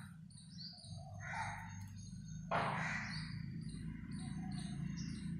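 Birds outside: a crow cawing and small birds chirping over and over, under a low steady hum. A short burst of noise about halfway through is the loudest sound.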